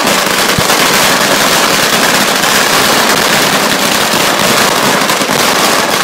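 A long string of firecrackers going off at close range: a dense, unbroken rattle of rapid sharp bangs, very loud.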